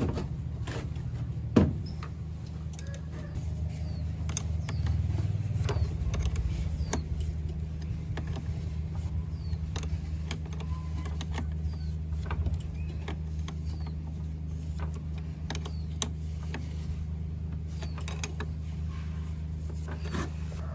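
Car engine running steadily, a low even drone, with scattered light clicks and ticks over it.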